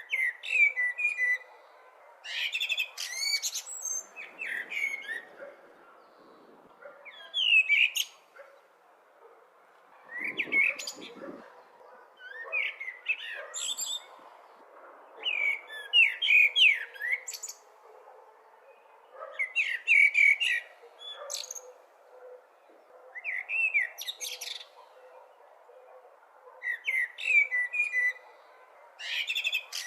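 Blackbird singing: a series of short warbling song phrases, one every two to four seconds, over a steady faint background noise.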